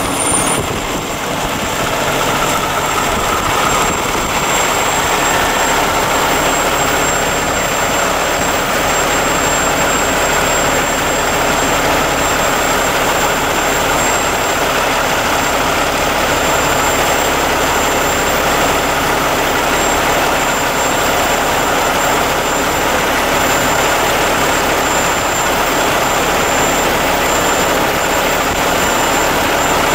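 Diesel-electric freight locomotives working steadily to shove a cut of tank cars slowly backward, heard as a loud, even engine drone with a faint steady high whine above it.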